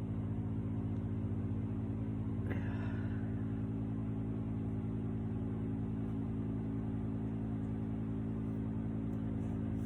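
A steady low mechanical hum, an even buzzing drone from a running motor or appliance, with a faint brief rustle about two and a half seconds in.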